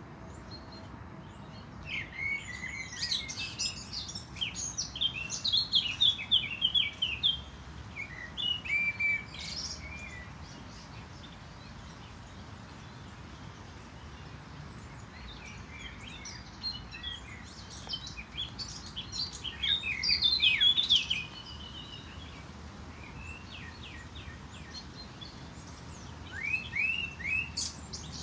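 Songbirds chirping and singing in three bouts with short pauses between, over steady background noise.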